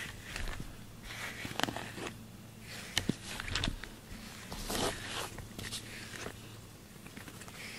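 A brush drawn through a cat's thick fur in short, irregular strokes about every half second to a second, with a few sharp clicks among them.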